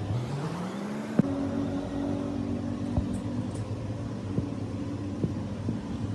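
A motor speeding up, rising in pitch over about the first second, then running steadily, with a few sharp knocks over it.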